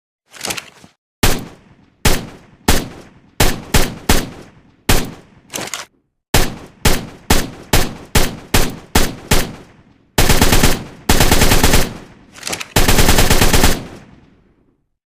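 Assault rifle gunfire: a run of single shots, about two or three a second, each with a short echoing tail, then three long bursts of automatic fire starting about ten seconds in, the last one fading out.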